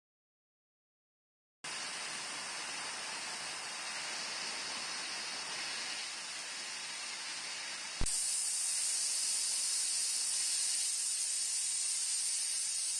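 Steady hiss that starts after about a second and a half of silence. A click comes about eight seconds in, and after it the hiss is brighter and a little louder.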